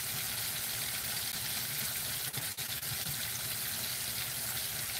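Breaded chicken fried steaks frying in deep shortening in a cast-iron skillet: a steady sizzle of hot fat, with a couple of small pops about halfway through.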